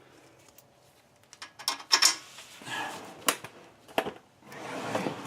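Parts being handled: a few sharp clicks and knocks, then a soft rustling near the end.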